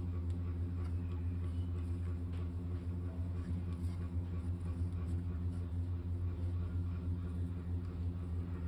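A machine running with a steady low hum that does not change.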